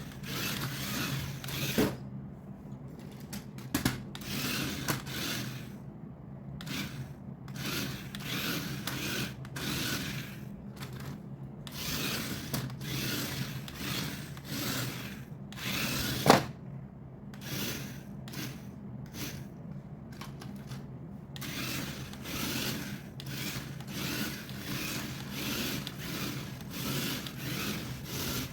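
Hands rubbing and scraping a toy and its cardboard and plastic packaging in repeated short strokes, with a few sharp clicks, the loudest about sixteen seconds in. A steady low hum runs underneath.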